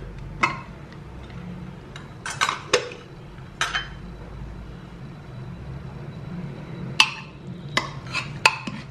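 Pressure cooker lid twisted open and lifted off with a few metal clanks. Then a steel ladle clinks and scrapes against the inside of the cooker in a quick run of strikes near the end as the cooked papaya and green gram are stirred.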